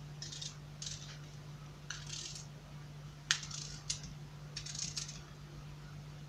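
Pieces of cut apple being dropped into a ceramic bowl: a few short soft clatters, with two sharper clinks a little past three seconds and near four seconds.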